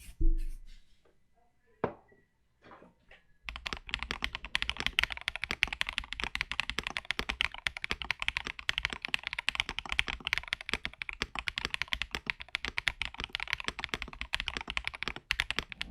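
Typing on an Akko ACR Top 75 acrylic top-mounted mechanical keyboard with Akko Crystal Wine Red linear switches and MDA Building Blocks keycaps. A few scattered key presses and a low thump come first, then fast continuous typing from about three and a half seconds in, stopping just before the end.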